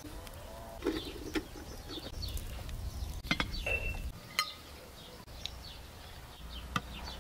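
Small birds chirping in short, falling calls, with a few sharp clicks and knocks of cookware: a wooden spoon against a metal pot and a glass pot lid set in place.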